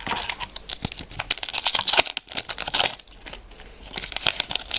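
Sports-card packs and cards being handled: crinkling and rustling with many quick clicks and scrapes as cards are slid and flipped.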